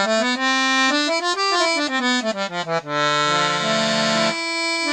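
Galanti piano accordion played on its low reed, its reeds freshly cleaned, re-waxed and tuned to pitch: a quick run of notes up the keyboard and back down, then held chords with a short break near the end.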